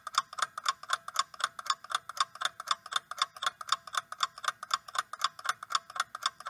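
Clock-ticking sound effect for a quiz countdown timer: fast, evenly spaced ticks, several a second.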